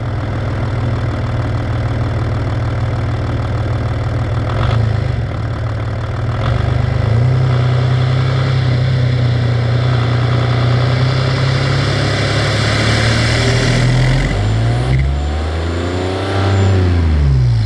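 Audi TDI turbodiesel engine running steadily, with a turbo hiss that builds over several seconds as boost is built up against the brakes. Near the end the engine revs up and falls back.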